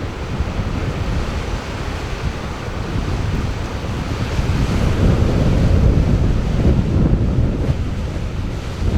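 Ocean surf washing, with wind buffeting the microphone; the wash swells about five seconds in.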